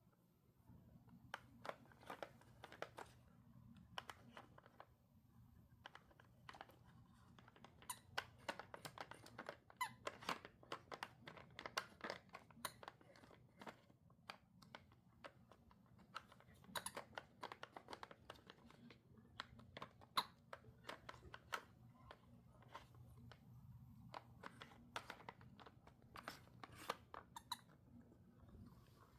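A cat crunching dry treats: irregular runs of small, sharp crunches with short pauses between them.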